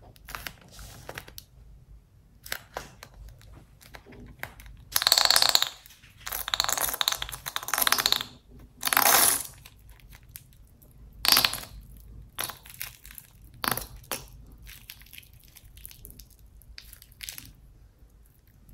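White glue squirted out of a squeezed rubber balloon through a small nozzle, wet spluttering squirts as glue and air push out. There are several longer, louder splutters in the middle, with short clicks and crackles between.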